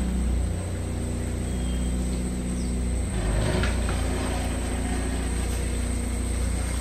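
Car engine running at low revs as the car pulls away slowly from a stop, with a steady low hum.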